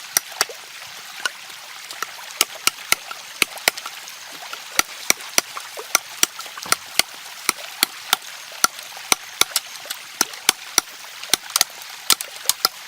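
Sharp cracks and knocks, irregular at about two or three a second, over the steady rush of a stream.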